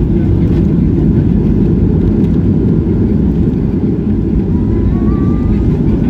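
Cabin noise of a Boeing 737 jet airliner rolling along the runway after touchdown: a loud, steady low rumble of the engines and wheels.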